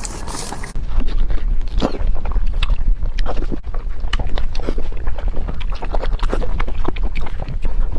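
Close-miked chewing of fatty pork: irregular wet mouth clicks and smacks over a steady low rumble.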